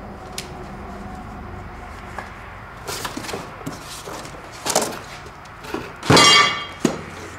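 Cardboard handling: small knocks and rustles as a boxed product is pulled out of a shipping carton, then, about six seconds in, the empty carton is tossed aside and lands scraping on the concrete floor (the loudest sound), followed by a single knock.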